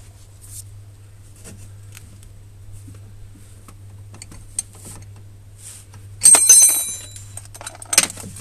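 Metal spanner clicking and clinking on the scooter's steel steering track rod and lock nuts as they are tightened. Light taps run throughout, with a loud ringing metallic clatter about six seconds in and a few more sharp clinks near the end.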